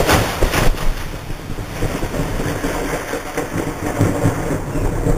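Thunder from a lightning strike close by, breaking out with the flash: sharp cracks in the first second, then crackling, rumbling thunder that rolls on.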